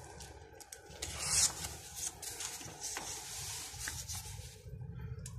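Paper pages of a picture book being turned by hand, a series of papery swishes and rubs, loudest about a second in.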